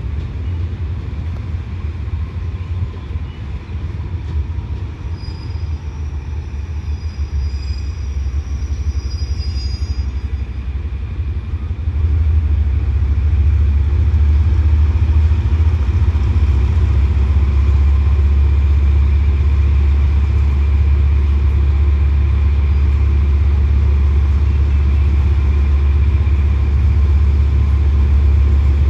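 Diesel-electric locomotives of a double-headed passenger train running as the train approaches slowly, a deep steady engine rumble that gets noticeably louder about twelve seconds in and stays loud.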